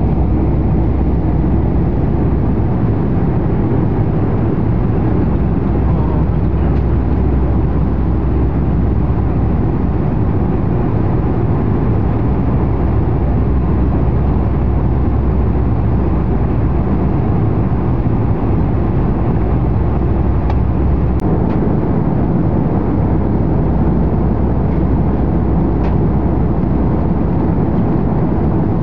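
Jet airliner cabin noise in cruise flight: the engines and rushing air as a steady, even low rumble, with a few faint clicks in the last third.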